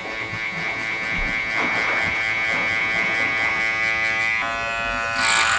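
Cordless electric hair clipper running with a steady buzz while it cuts a fade into the side of the head. Its tone shifts about four seconds in, and there is a brief hiss near the end.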